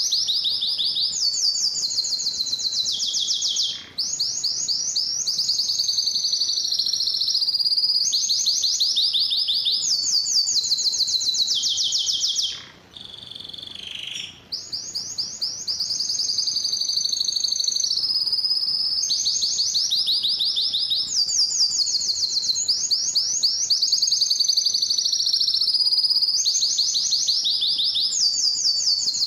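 Male domestic canary singing: a continuous song of rapid trills, each phrase a second or two long and shifting pitch from the one before, with a short break about halfway through.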